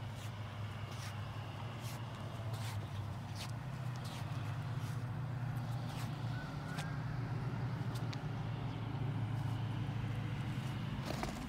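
Steady low mechanical hum, like an engine or machinery running, with a few light taps scattered through it.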